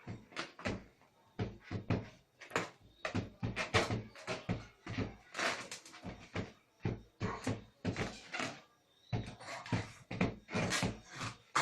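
A rapid, irregular series of loud bangs and knocks, about two or three a second, like a cupboard door or hard objects being banged repeatedly by a child.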